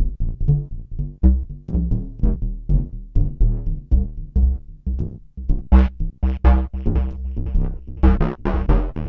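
Home-built analog synthesizer playing a fast, repeating sequence of short, bass-heavy notes, about four to five a second. The notes turn brighter and sharper about six seconds in and again near the end, as the filter opens.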